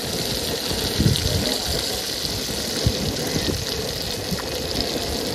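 Fish frying in hot oil in an aluminium pan, a steady sizzle, with a couple of light knocks from the slotted spoon about a second in and near three seconds.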